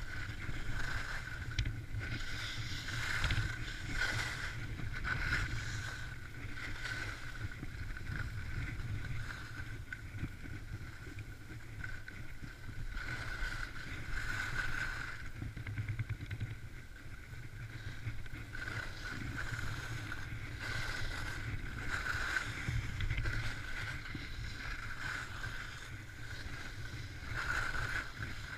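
Skis hissing and scraping over packed snow on a downhill run, swelling and fading every second or two with the turns, over a low rumble of wind on the microphone.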